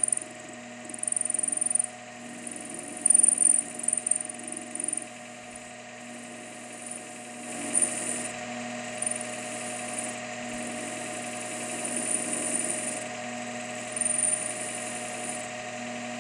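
Metal lathe running with a steady hum while its tool bit faces off the end of a small steel part. A high-pitched cutting noise comes in repeated spurts over the first few seconds, then turns steadier and a little louder about halfway through.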